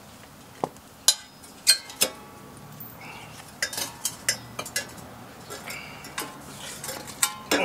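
Sharp, irregular metal clinks and clicks of bolts, washers and hand tools being handled while fitting an exhaust muffler's mounting hardware, a few with a brief ring.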